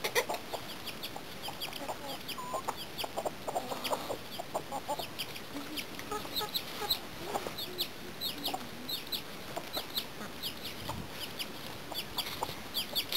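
Chickens clucking, with many short high chirps repeating throughout.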